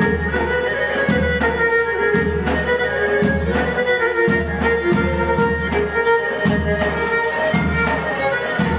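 Pontic Greek folk dance music, a bowed string melody over a low beat that falls about once a second.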